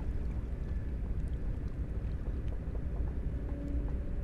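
Steady low rumble of wind buffeting the microphone over open water, with a few faint ticks.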